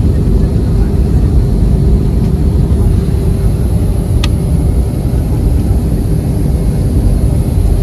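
Steady cabin noise of an airliner in flight: a deep, even rumble of engines and rushing air with a faint steady hum above it. A single brief click about four seconds in.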